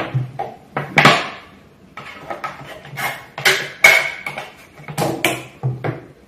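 A clear plastic PET bottle crackling and snapping as it is handled and cut with scissors: a string of irregular sharp clicks and crinkles, with a brief squeak about four seconds in.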